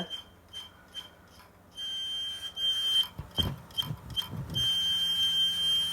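Hard disk drive running with its cover screws removed, giving off a high-pitched electronic beeping whine: short pulses at first, then a held tone, then pulses again, and a steady tone from about four and a half seconds in. The noise appeared once the cover screw came out. A few low knocks come in the middle.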